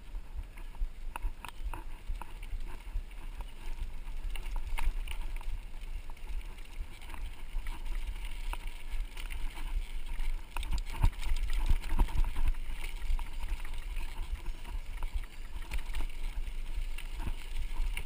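Mountain bike rolling over a dirt and gravel road: a steady low tyre rumble with frequent rattles and knocks of the bike over bumps.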